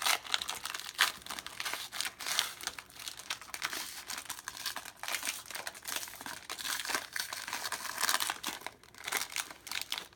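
A sealed trading-card pack wrapper being torn open and crinkled by hand: irregular crackling and tearing, with a brief lull near the end.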